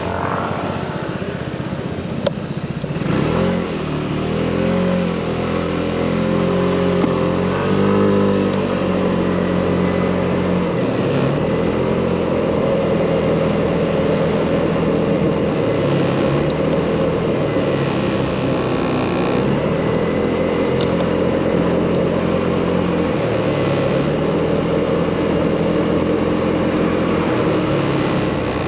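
Motorcycle engine under way, rising in pitch and dropping back several times in the first eight seconds or so as it shifts up through the gears, then running at a fairly steady cruising pitch, over constant wind and road noise.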